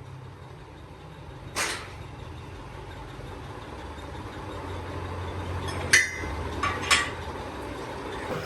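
Sharp metallic clanks over a steady low engine hum: one clank about a second and a half in, then three close together near the end, the first of them ringing briefly.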